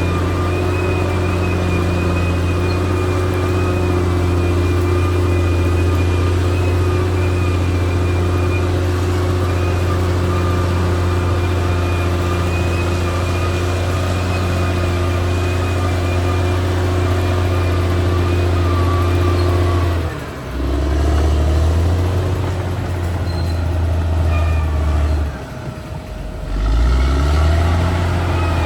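Caterpillar D6R XL bulldozer's diesel engine running steadily under load, with a faint high whine above it. About two-thirds of the way through the engine note drops lower. Near the end it dips briefly again and then climbs back up.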